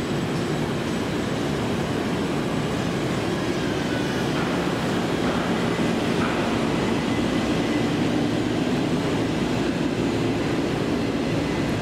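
Steady hum of a KAI Commuter electric train standing at the platform with its doors open, its onboard equipment running.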